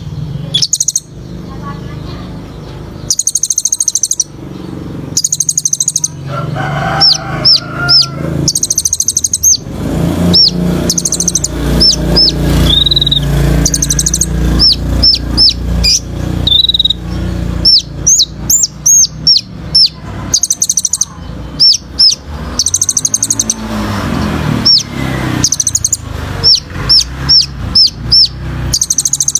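Kolibri ninja sunbird singing hard: short rapid high buzzy trills alternate with runs of sharp, quick, high notes that drop in pitch, the full 'tembakan' song, over a low steady rumble.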